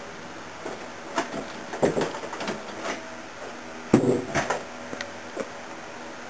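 Scattered knocks and clatters, as of objects being handled or bumped, over a steady background hiss; the loudest cluster comes about four seconds in.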